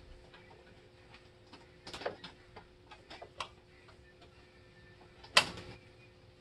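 Throttle linkage and cable on a Sniper EFI throttle body being worked by hand: scattered light clicks, a short cluster about two seconds in, and one sharp, loud snap about five seconds in.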